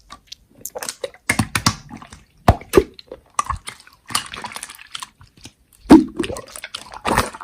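Slime being squished and pressed by hand, making irregular wet, sticky clicks and pops.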